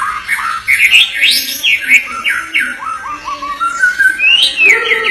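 White-rumped shama (murai batu) singing a fast, unbroken run of loud whistled notes, many sliding quickly down in pitch, with a rising phrase near the end.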